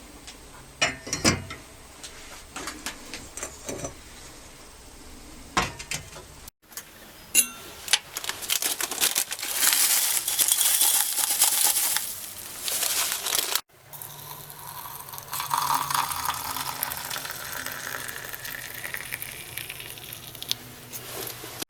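Light clinks and knocks of china tea-set pieces being handled and set down, several short strikes in the first few seconds. After an abrupt cut comes a loud hissing stretch, and after another cut a steadier noisy stretch over a low hum.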